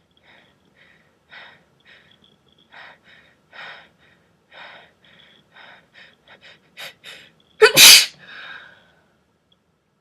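A person's breathy sneeze. A run of short gasping inhales comes faster and closer together, then one loud, breathy sneeze bursts out nearly eight seconds in, trailing off into a brief exhale.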